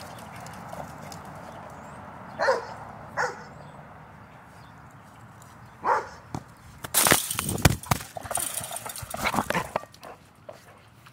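A dog barks three short times, each bark dropping in pitch. These are followed by a run of loud thumps and scuffling during play with a ball.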